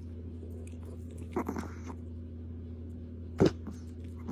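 Chihuahua's mouth noises: a brief cluster of soft wet sounds about a second and a half in, one sharp click about three and a half seconds in, and more at the end, over a steady low hum.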